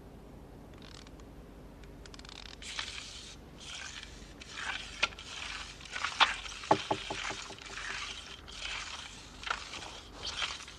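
Intermittent scraping and rustling sound effects, with a few sharp clicks and a short low rattle about midway.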